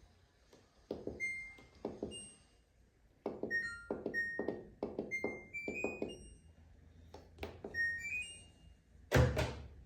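A dozen or more button presses on an LG WT16WV6 washing machine's control panel, each with a short tap and many with a brief electronic beep, some beeps stepping up in pitch as the settings change. A heavier thunk comes near the end.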